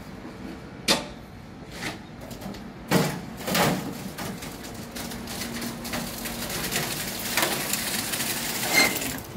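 Building-site noise: a few sharp knocks and clatters over a steady low machine hum, with a hiss that builds through the second half.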